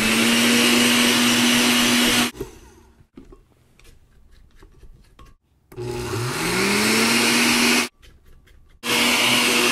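Countertop blender grinding granulated sugar into powdered sugar in short runs. The motor whines loudly, then stops about two seconds in. It starts again a few seconds later with a rising whine as it spins up, runs about two seconds and stops, then starts once more near the end. Faint knocks fall in the quiet gaps between runs.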